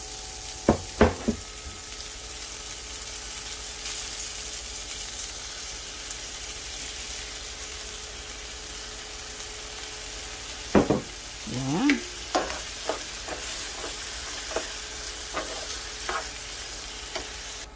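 Long beans sizzling as they sauté in a nonstick frying pan with soy sauce. A spatula knocks and scrapes against the pan a few times near the start, and more often in the last third as the beans are stirred.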